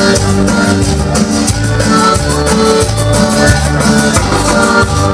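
Cumbia music played loud through a sonidero's sound system, with a steady beat and a moving bass line.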